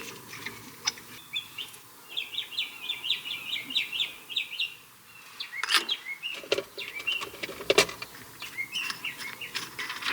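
Small birds chirping, with a fast run of short repeated chirps in the first half. Two sharp clicks or knocks, about 6 and 8 seconds in, are the loudest sounds.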